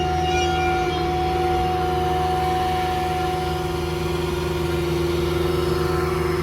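A VMAX hydraulic air compressor, just switched on, running with a steady high whine over the truck's 6.4 Power Stroke diesel engine running steadily.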